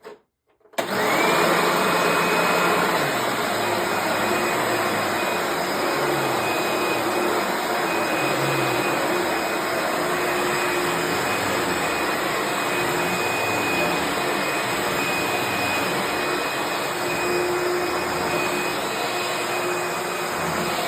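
Eureka Boss Plus upright vacuum cleaner's 12-amp motor switched on with a click: about a second in it spins up with a rising whine, then runs steadily.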